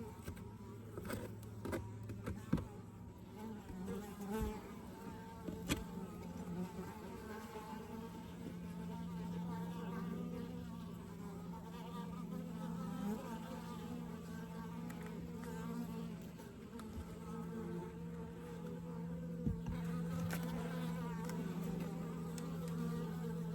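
Honeybees buzzing around an open hive during a frame inspection: a steady hum, with a few faint clicks.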